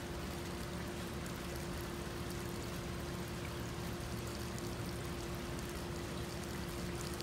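Thin stream of water from a garden hose trickling steadily onto a concrete pad as a cat drinks from it, with a steady hum underneath.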